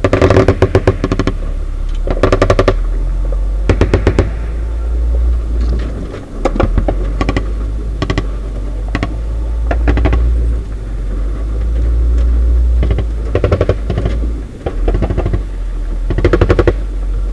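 MK-19 40 mm automatic grenade launcher firing repeated short bursts of rapid shots, about ten bursts in all. A vehicle engine rumbles steadily underneath.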